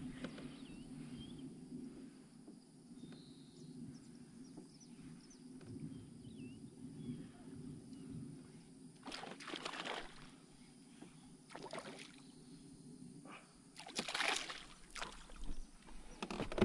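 Water sloshing and splashing around a kayak, with louder splashes about nine seconds in and again about fourteen seconds in.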